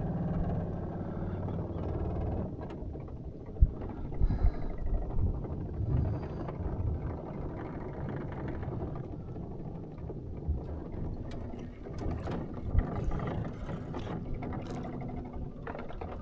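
Small boat's motor running with a steady low hum that fades out about two seconds in, followed by scattered knocks and thumps against the boat.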